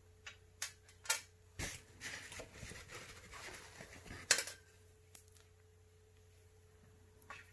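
Small magnets being handled on a hard, smooth board: a few light clicks, then about two seconds of rubbing and scraping as they are picked up, one sharp click a little past four seconds in, and a couple of light clicks near the end as a magnet is set down again.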